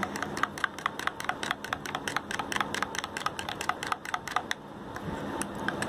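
Metal spoon clicking rapidly against a glass bowl while curd is stirred into green coriander chutney, several sharp clicks a second, easing off briefly a little after the middle.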